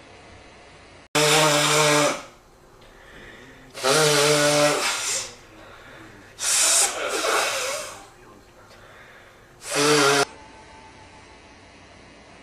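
A person blowing their nose hard four times, each blow lasting about a second. Three of the blows carry a steady pitched tone.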